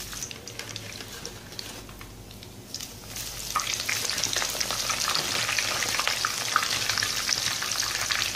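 Hot oil sizzling and crackling in a frying pan with coated chicken pieces. There is a soft crackle while the fried pieces are lifted out with tongs. About three seconds in, fresh coated pieces go into the hot oil and a loud, dense sizzle starts and keeps going.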